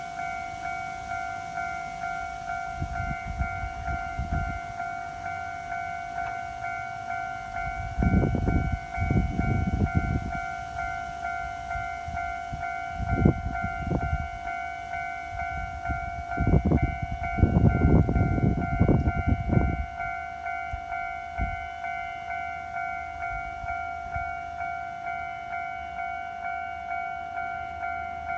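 Japanese level-crossing warning bell ringing steadily at just under two strokes a second. From about eight to twenty seconds in, a train's low rumble and wheel clatter come in bursts over the bell as it passes the crossing.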